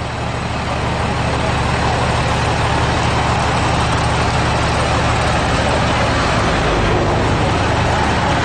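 A stationary military truck's engine idling close by: a steady low engine drone that grows a little louder over the first couple of seconds, with voices in the background.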